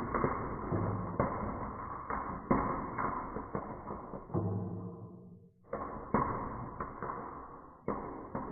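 Marbles rolling and clacking down a wooden HABA marble run: a series of sharp knocks about once a second, each trailing off into a rolling rumble, with a brief lull about five and a half seconds in.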